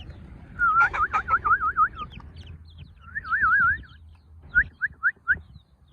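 A person whistling to call chicks: two warbling trills, then four short rising chirps. Faint chick peeps sound higher up.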